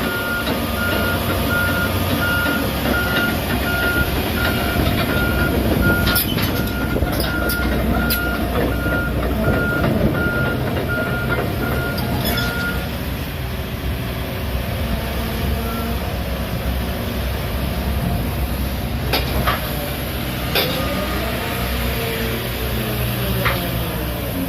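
Heavy diesel equipment running with its backup alarm beeping, a bit under two beeps a second, until the beeping stops about halfway through. The engine keeps running, with a few sharp clanks.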